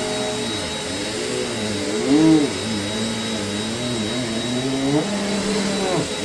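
Upright bagless vacuum cleaner running with a steady high whine. Its lower motor tone wavers and dips and swells louder about two seconds in, as its strong suction grips a shag rug so that the cleaner will not push forward.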